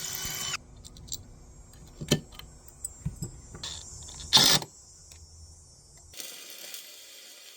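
A drill motor whirring briefly as the clip opens, then scattered clicks and knocks of metal tools and drill bits being handled, with a louder short rattle about four and a half seconds in.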